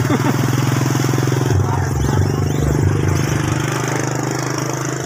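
A motorcycle engine idling steadily, with an even, rapid pulse.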